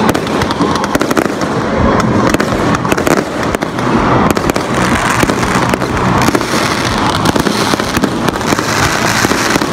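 Fireworks display going off in a dense, continuous run of bangs and crackles.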